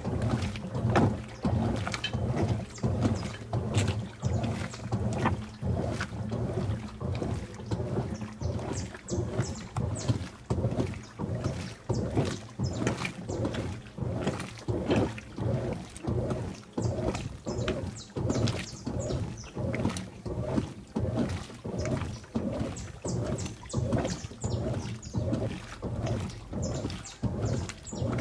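Washing machine agitating a wash load: water and wet laundry sloshing back and forth in an even rhythm of about one and a half strokes a second, over the steady low hum of the motor.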